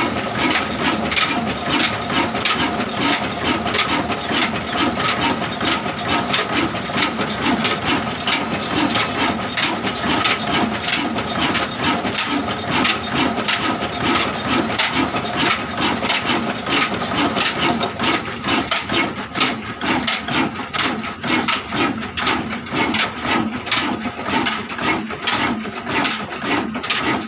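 Newshahi single-cylinder horizontal diesel engine running steadily, its firing strokes a fast, even knocking beat over a thin steady whine.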